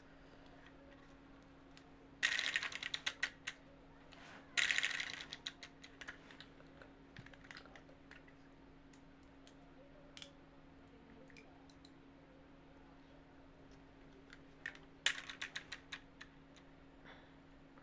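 Small hard plastic toy pieces clicking and clattering as they are handled, in three short bursts of rapid clicks with a few single clicks between, over a faint steady hum.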